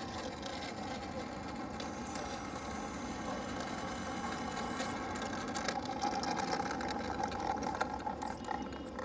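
A small motor running steadily with a faint whine, over low wind rumble on the microphone.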